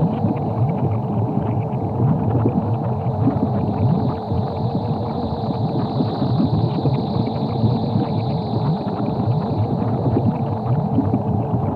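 Larval Dogora monster sound effect: a steady, churning low sound with a wavering tone running through it.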